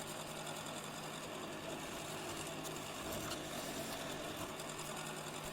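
Electric drill running steadily, boring a 20 mm hole in wood with a Forstner bit; a constant low hum with no breaks.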